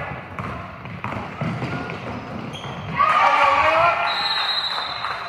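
Basketball being dribbled on a gym floor amid crowd chatter. About three seconds in the spectators shout out, and about a second later a referee's whistle sounds one long steady high blast that runs to the end.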